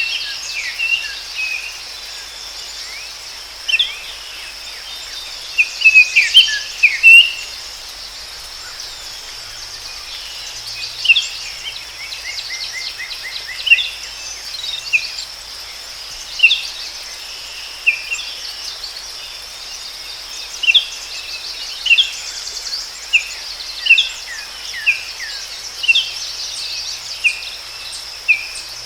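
Forest ambience: birds chirping in short calls every second or two, with one quick trill about twelve seconds in, over a steady high-pitched insect drone.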